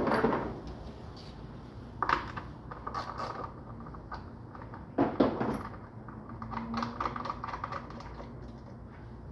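Tools and engine parts handled by hand: a few sharp knocks and bursts of light clicking and rattling, while the mechanic gets ready to pull the ignition coil and spark plug on the next cylinder.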